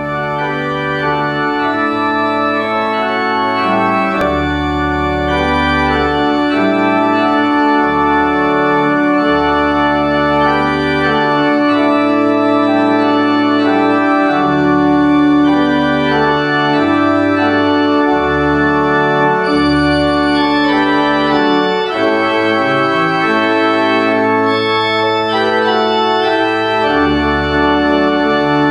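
Organ music: slow, sustained chords held over deep bass notes that change every second or two.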